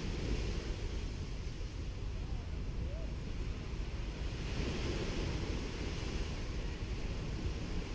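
Small Caribbean waves breaking and washing up a sandy beach: a continuous surf wash over a low rumble, swelling twice, near the start and again just past halfway.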